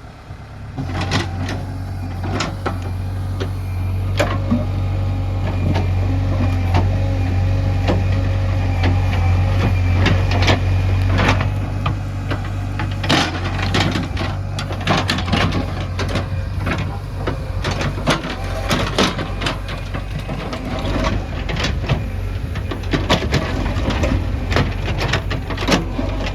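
Diesel engine of a JCB 3DX backhoe loader running under load while digging and loading mud, with repeated knocks and clanks throughout. The engine is loudest in the first half and eases off about halfway.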